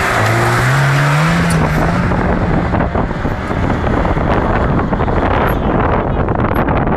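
Lada Niva engine revving hard under full throttle on a steep dirt climb. Its pitch rises over the first second or two and then holds at high revs. The wheels spin in loose dirt, adding a loud rough rush.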